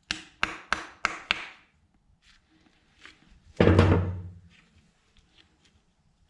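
Parts and tools knocking during reassembly of a rear shock absorber: five quick sharp clicks, about three a second, then one heavy thump about three and a half seconds in.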